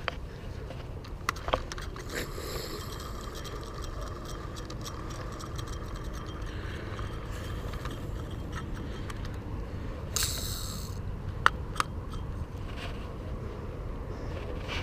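Wind buffeting the microphone as a steady low rumble, with scattered clicks and scrapes of handling and a short rasping burst about ten seconds in.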